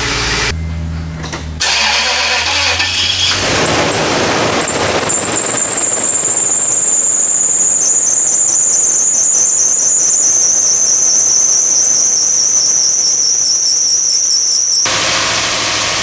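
A loud, high-pitched squeal over the running Toyota 2UZ-FE V8, wavering and slowly falling in pitch before it cuts off suddenly near the end: the engine's drive belt squealing.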